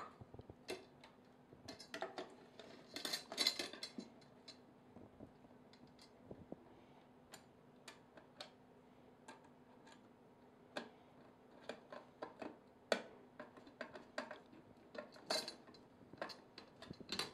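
Light, irregular clicks and taps of a hand screwdriver driving small screws through a plastic MountaRay bracket into an aluminium rail, with knocks from handling the bracket and rails. The clicks come in two busier flurries, one a few seconds in and another near the end.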